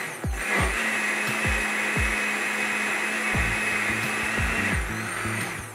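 Countertop electric blender running, puréeing cooked vegetable soup, with a high motor whine that winds down near the end. Background music with a steady kick-drum beat underneath.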